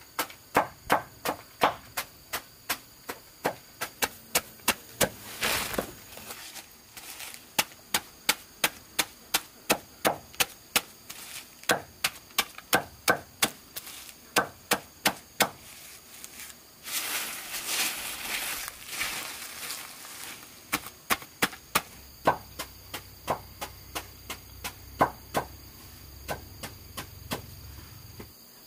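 Repeated chopping strikes, about two to three a second, broken twice by short spells of rustling or scraping. Insects trill faintly and steadily behind.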